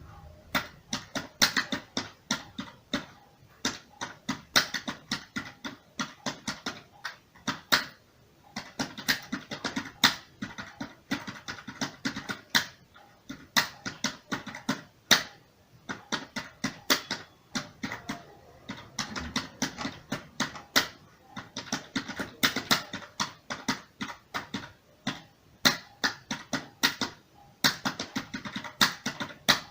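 Computer keyboard being typed on at an even pace, a stream of irregular key clicks several per second, broken by a few short pauses.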